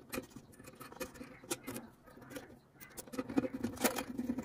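Small clicks and scrapes of a screwdriver working a terminal screw on a rice cooker's base, fastening the lead of a replacement thermal fuse. The clicks come thicker and louder in the last second or so.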